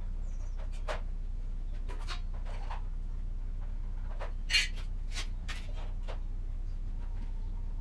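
A few scattered light clicks and scrapes over a steady low electrical hum, with one louder click about four and a half seconds in.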